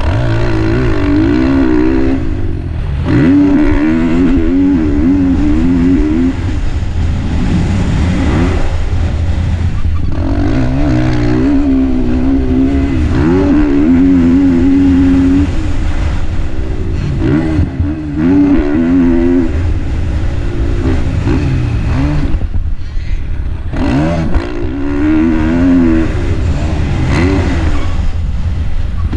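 KTM 450 four-stroke motocross bike's single-cylinder engine revving hard and falling away again and again as the rider works the throttle and shifts around the track, with the throttle chopped briefly a few times, about 2 s in, near 10 s, near 18 s and around 23 s.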